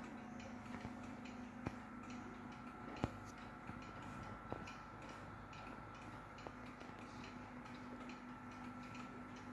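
Soviet mechanical pendulum wall clock ticking, a faint, even tick-tock, with a few louder single clicks here and there.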